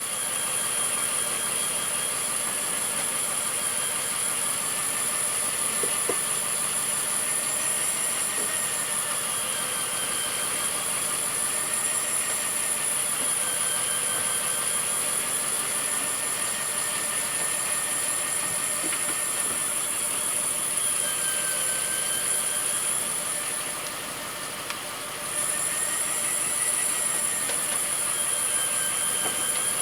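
Fishing boat's engine running steadily, its pitch rising and falling slowly every few seconds, over a constant hiss and a high whine. The whine and part of the level drop out for about a second and a half near the end.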